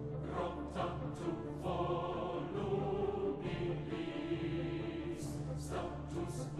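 Choral music: a choir singing over steady low held notes.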